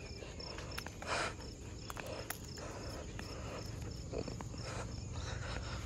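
Insect chirping: a short, high chirp repeating evenly about three times a second over quiet outdoor background, with a brief soft rustle about a second in.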